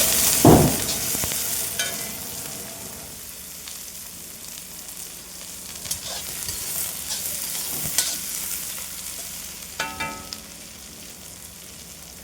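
Food frying in a hot pan: the sizzle is loud at first and settles over a few seconds. A heavy thump comes about half a second in, and a metal spoon or ladle stirs and knocks against the pan several times, one knock ringing near the end.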